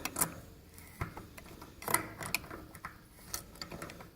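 A wrench working on metal fittings of an air compressor's pump head: a string of irregular sharp clicks and taps as the filter fittings are tightened.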